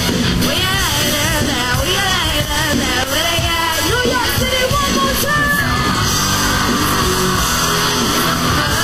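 Music with singing: a sung vocal melody over a full instrumental backing.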